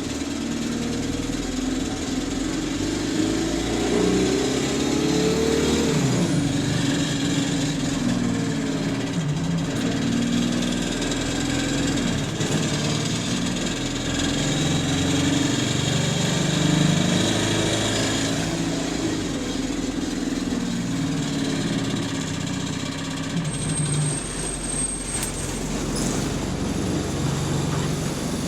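Bus engine running as the bus moves, its pitch rising and falling with engine speed, with a ticking whose rate follows the engine revs.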